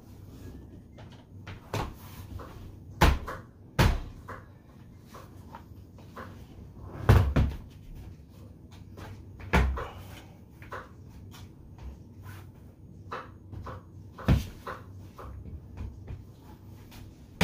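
Outdoor furniture parts being fitted and pushed together during assembly: irregular knocks and clunks, several loud ones among lighter taps and clicks.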